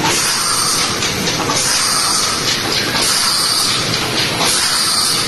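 Vertical ultrasonic vial washing machine running, with a steady mechanical clatter of glass vials being carried through it. Over the clatter, jets hiss, swelling about every second and a half.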